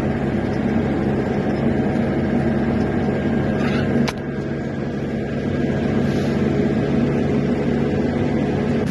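A vehicle engine running steadily, a low hum with a few fixed tones, broken by a sharp click about four seconds in, after which it is a little quieter.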